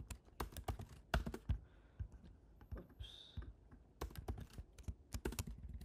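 Typing on a computer keyboard: keys clicking in quick irregular runs, with a pause of about two seconds in the middle.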